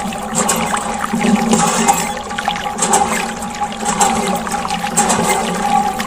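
Water churning and splashing in a small DIY toy washing machine, over a steady whine from its small electric motor.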